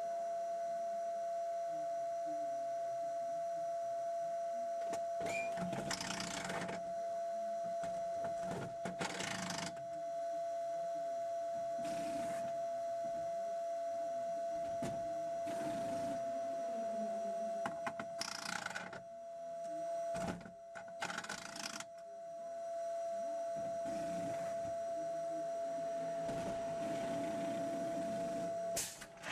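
Inside the cockpit of a stationary Audi R18 e-tron quattro prototype in a pit stop: a steady high electrical whine, broken by about six short bursts of mechanical noise, with the whine cutting off just before the end.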